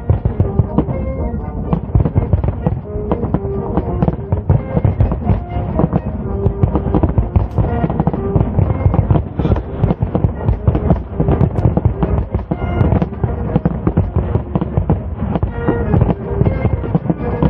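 Fireworks display going off in a dense barrage, many bursts and reports a second with no let-up, over music with held notes.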